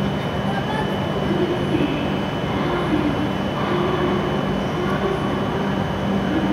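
E7 series Shinkansen train at the platform at the end of its arrival, giving a steady hum with a thin high whine.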